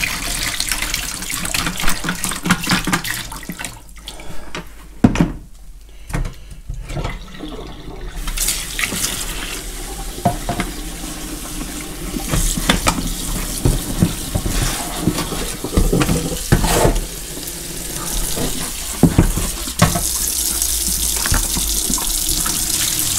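Dirty water poured from a carpet cleaner's plastic tank splashing into a stainless steel sink, with scattered knocks of the tank against the sink as it is handled. Near the end a kitchen tap runs steadily as the tank is rinsed.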